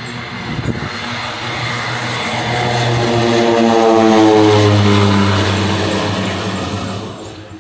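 Twin-engine propeller plane climbing out at takeoff power, its engine and propeller drone swelling as it passes close overhead, then the pitch sliding down as it goes by. The sound cuts off abruptly near the end.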